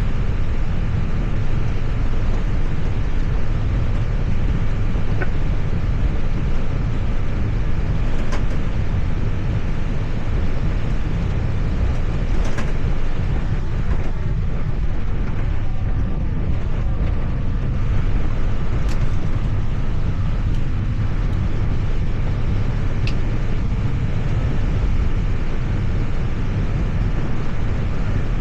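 Steady low rumble of an airliner's flight deck, with a few faint clicks.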